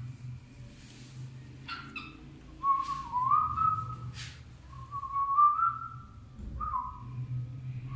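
Cockatiel whistling several short phrases, each a held note that bends slightly upward, with a few sharp clicks in between.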